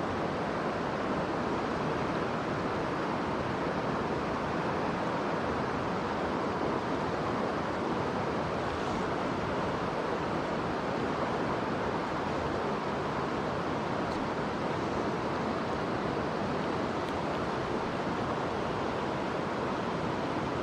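Mountain stream water rushing, a steady even wash of flowing water.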